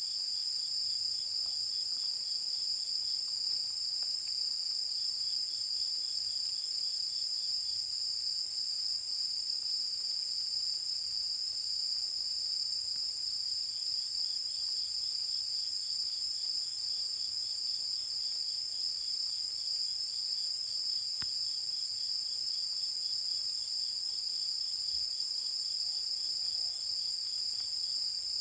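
Night chorus of singing insects: a steady, high, unbroken trill, with a fainter second insect chirping in quick even pulses that stops and starts in stretches.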